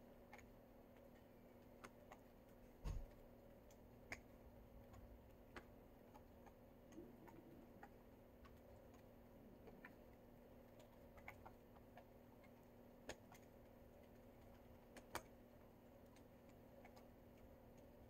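Near silence: room tone with a faint steady hum and scattered faint clicks, and one brief low thump about three seconds in.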